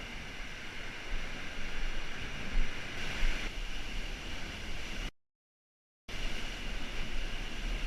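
Steady rushing noise of sea water and wind buffeting the microphone, with a low rumble; it cuts out completely for about a second a little past the middle, then resumes.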